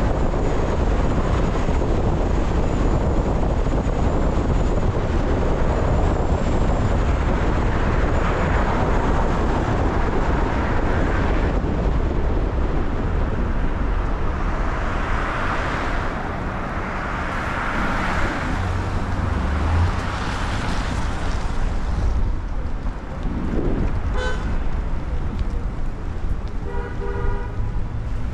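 City street traffic in the rain: a steady hiss and rumble of vehicles. A car horn sounds twice near the end, a short toot and then a longer honk.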